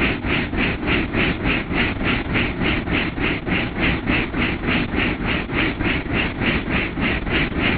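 Helicopter in flight heard from inside the cabin: a steady engine and rotor rumble with an even pulsing of about four beats a second.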